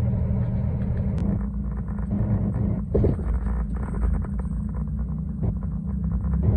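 Log truck's engine running, heard from inside the cab: a steady low rumble with faint rattles on top.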